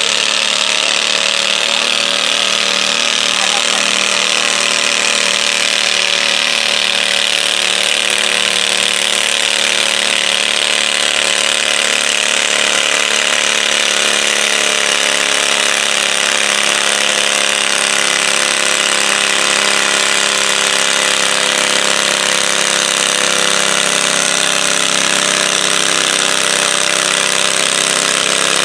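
Stock garden tractor's small engine held at full throttle under heavy load while dragging a weight-transfer sled, a loud, steady, rough drone that does not change pitch.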